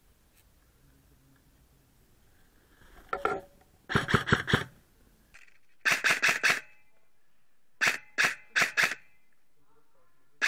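Airsoft gun firing in short, rapid strings of sharp shots: several groups about two seconds apart, then four single shots in quick succession and one more near the end.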